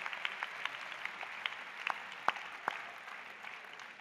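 Audience applause from a large crowd of many hands, thinning and fading out near the end, with a few louder single claps close by a little after two seconds in.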